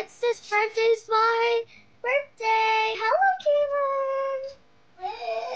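A child singing in a high voice: a few short notes, then two long held notes, with a brief pause near the end.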